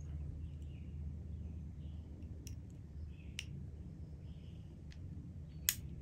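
Small sharp clicks and faint rustling of hands working a plastic Deutsch DT connector housing as a crimped pin terminal is pushed into it from the back, the loudest click near the end, over a steady low hum.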